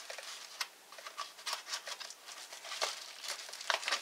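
A folding knife blade scraping and picking at the fold of a kraft-paper padded mailer, the paper crinkling in a scatter of small scratches and ticks. The blade is dull, so it catches and scrapes rather than slicing cleanly.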